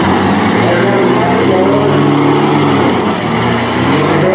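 Demolition derby SUV and mini-truck engines running and revving, their pitch rising and falling as the vehicles manoeuvre.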